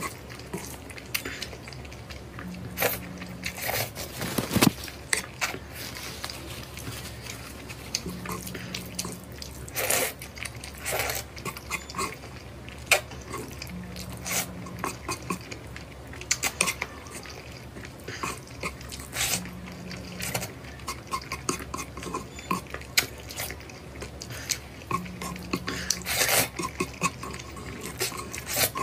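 A person slurping and chewing spicy Samyang instant noodles in thick sauce. The sound is a run of short, irregular wet slurps and mouth smacks.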